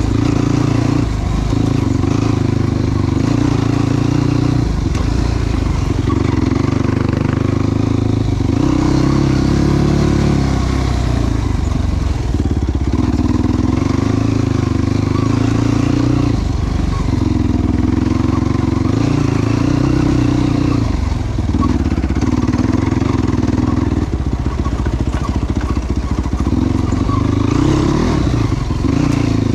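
Yamaha YFZ450 sport ATV's single-cylinder four-stroke engine running under load while being ridden. The engine note holds for a few seconds at a time, then dips briefly as the throttle or gear changes, over and over.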